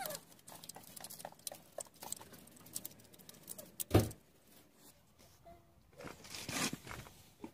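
Socket ratchet clicking in short runs as it turns a plug on a manual gearbox casing, with one loud knock about four seconds in and a brief rustle near the end.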